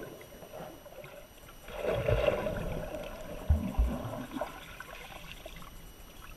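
Muffled underwater swishing of a swimmer moving through lake water, heard from inside a GoPro's waterproof housing. A rushing swell comes about two seconds in, with a few low thumps at about two and three and a half seconds, then it settles to a quieter wash.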